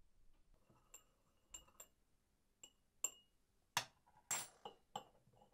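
A metal teaspoon clinking against china tea cups: about nine separate small ringing clinks, louder from about three seconds in.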